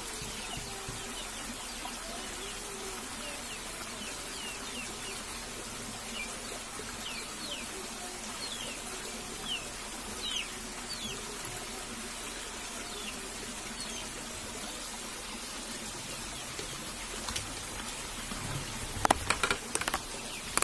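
A shallow rocky stream running, with a steady rush of water, while a bird gives short high chirps again and again through the first half. A few sharp knocks come near the end.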